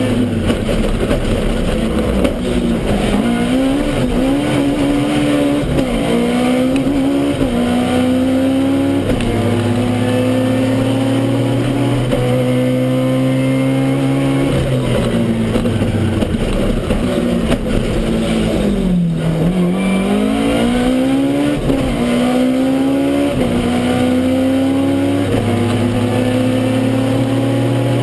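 Toyota Starlet KP61 rally car's engine heard from inside the car under hard acceleration, its pitch climbing through each gear and dropping at every shift. About nineteen seconds in, the revs fall away sharply, then build again.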